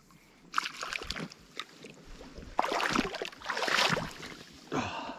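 Water splashing and sloshing in irregular bursts, louder in the middle, as a small brook trout is landed at the shore. A short voiced sound comes near the end.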